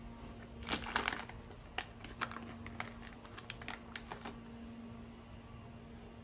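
Plastic snack bag crinkling as it is handled and a salami stick is pulled out: a burst of sharp crackles about a second in, then scattered crackles that stop just after four seconds.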